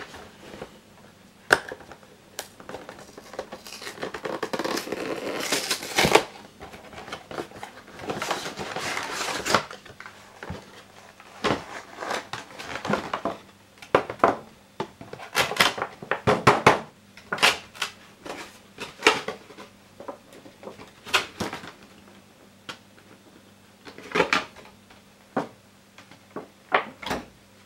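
Cardboard and plastic packaging of a Pokémon card collection box being handled and torn open: rustling and tearing for several seconds, then many sharp clicks and taps of cardboard and plastic pieces being pulled apart and set down.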